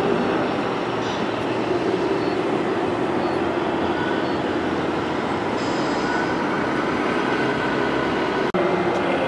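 Steady rumbling noise of radio-controlled model trucks running on a layout, mixed with the din of an exhibition hall; it drops out for an instant near the end.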